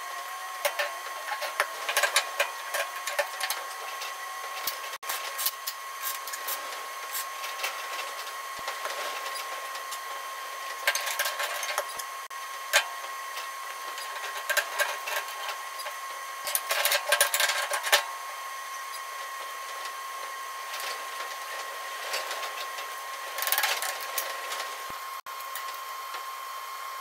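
Steel plates and clamps being fitted and set on a bucket's pin mount: bursts of metallic clatter and clicks, about two seconds in, midway, a longer run past the middle and again near the end, over a steady hiss and a faint steady hum.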